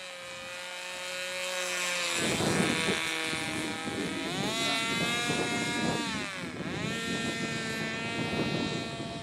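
Radio-controlled model airplane's motor and propeller whining as it flies overhead. The pitch rises about four seconds in, dips sharply near six and a half seconds and climbs again. A rushing noise runs under it from about two seconds on.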